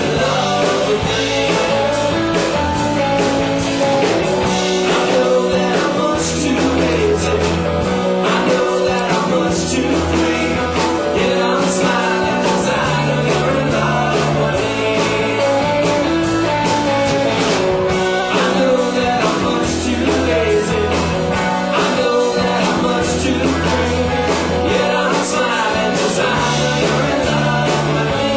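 Rock band playing live, with electric guitar, bass and drums carrying a steady beat.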